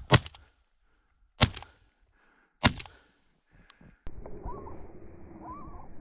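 Three shotgun shots fired at flushing chukar, about a second and a half apart, followed by a couple of small mechanical clicks and then faint steady outdoor background.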